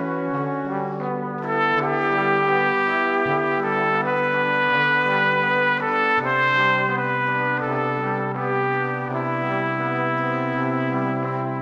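Background instrumental music of long, held notes and chords, with the bass note changing about every three seconds.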